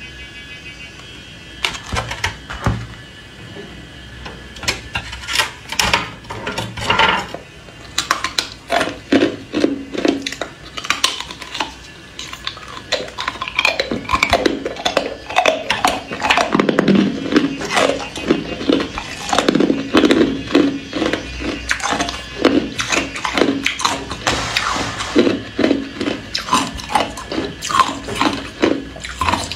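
Hard ice cubes being bitten and crunched close to the microphone: a rapid, irregular run of sharp cracks and crunches that starts about two seconds in.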